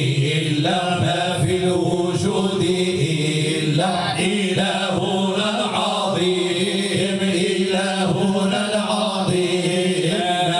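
Group of men chanting Islamic praise song (Moroccan madih) together into microphones, in unison with long held notes.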